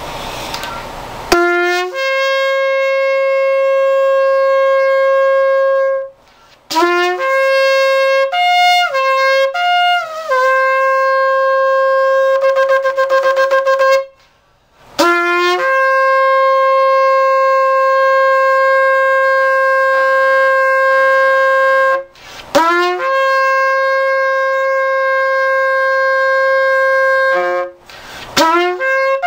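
A 31-inch twisted-horn shofar, freshly cleared of an oil-scale blockage and fitted with a redone mouthpiece, sounded in a series of blasts: long steady notes on one high pitch, each opening with a quick upward slide from a lower note, broken by groups of short notes and one long note that wavers.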